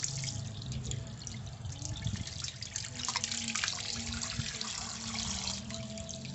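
Water trickling and dripping at a wet pipe joint, with small clicks and rubbing as a plastic water pipe is screwed into its fitting by hand.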